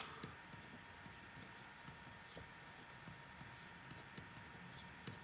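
Faint scratching of a pen writing on paper in short, scattered strokes.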